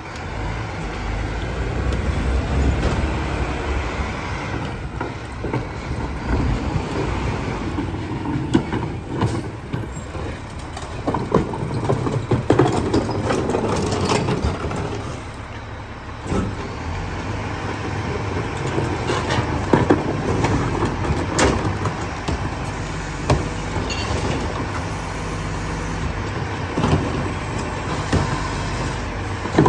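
Rear-loading garbage truck's engine running steadily, with scattered knocks and bangs as trash bins are tipped and bags are thrown into the rear hopper.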